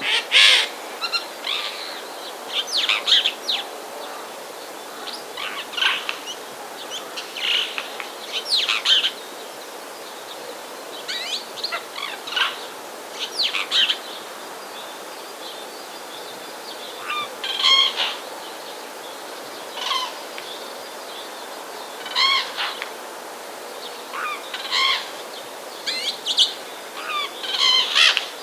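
Birds calling: short calls and chirps at irregular intervals, one every second or two, over a steady background hiss.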